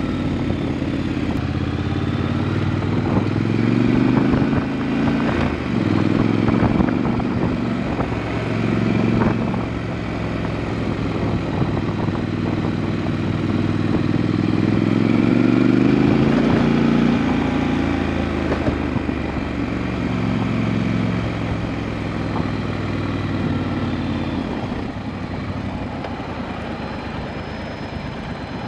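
Motorcycle engine running as the bike is ridden up a dirt road, its note rising and falling with the throttle, with occasional clicks and rattles. It drops to a quieter, steadier note near the end as the bike comes to a stop.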